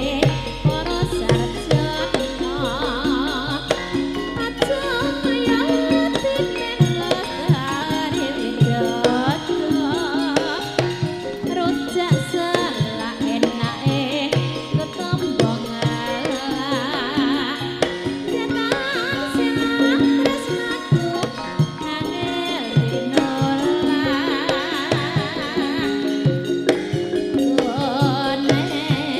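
Tayub dangdut coplo music: wavering, vibrato-laden singing over dense, driving hand-drum beats and a full band.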